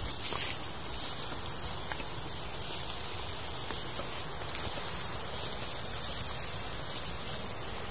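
A steady, high insect chorus, crickets or similar, chirring without a break.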